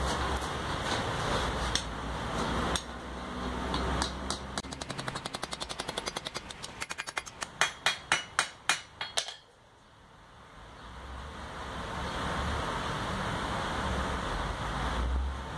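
Blacksmith's hand hammer striking a hot iron poker bar on the anvil: a run of quick light taps that builds into about half a dozen hard blows, roughly three a second, then stops. A steady background hum and hiss runs before and after the hammering.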